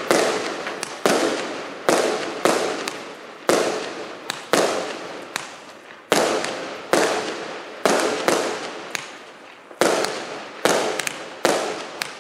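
Liuyang Starlight 4120A 120-shot 0.8-inch fireworks cake firing in quick succession. A sharp shot comes about once a second, with a few quicker extra cracks in between, and each one trails off into a fading hiss before the next.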